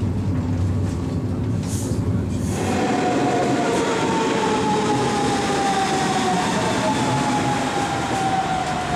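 Steady low rumble of an ICE train running through a rail yard, heard from inside the carriage. About two and a half seconds in, the sound switches to a station platform. A red DB Class 424 S-Bahn electric multiple unit moves along the platform, with track and wheel noise and a whine that slowly falls in pitch.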